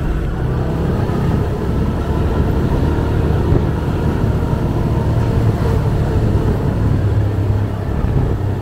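Motorcycle engine running steadily while riding, a low rumble with road noise.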